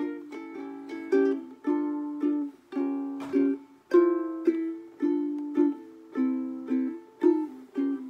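Ukulele strummed by hand in a steady rhythm of about two strums a second, each chord ringing and fading before the next, the chords changing as it goes.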